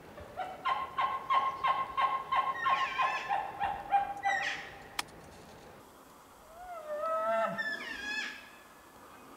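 Bull elk chuckling after a bugle: a fast run of about a dozen grunting notes, roughly three a second, for about four seconds. Then comes a single sharp click, and near the end a second, shorter wavering call.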